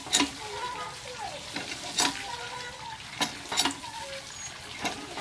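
Hand pump (tube well) being worked, water gushing from the spout onto fish pieces in a plastic basket, with a sharp clank from the pump handle on several strokes.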